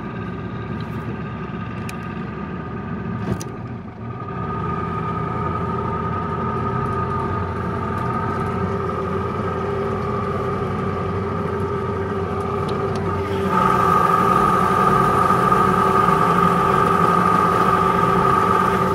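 Mercury 85 hp outboard motor running steadily as the speedboat moves under way. About three-quarters of the way through it turns clearly louder and stays so.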